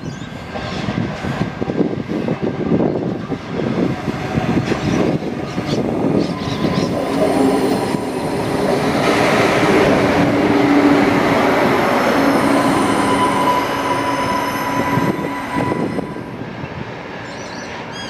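Adelaide Metro diesel railcar running into the station and passing close along the platform. Engine and wheels on the rails grow louder to a peak about halfway, with a steady whine over the rumble. The sound drops away suddenly near the end.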